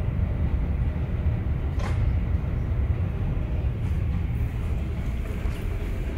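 Steady low rumble of airport terminal and jet bridge background noise, with one short click about two seconds in.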